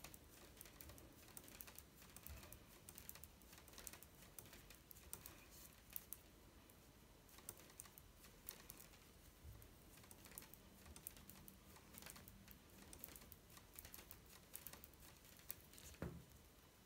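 Faint, quick, irregular clicking of knitting needles as stitches are knitted one after another, with a slightly louder knock near the end.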